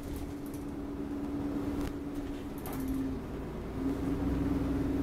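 Enviro400 Trident double-decker bus on the move, heard from inside on the upper deck: a steady hum over low road rumble. The hum shifts briefly about three seconds in, then comes back louder near four seconds.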